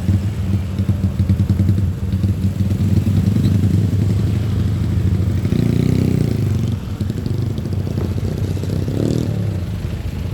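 Road traffic: the steady low rumble of motor vehicle engines running close by, swelling louder about six seconds in as one passes, with a short rising engine note near the end.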